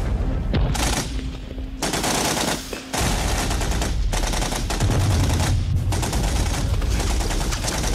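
Gunfire in a battle: scattered shots at first, then continuous rapid machine-gun fire from about three seconds in.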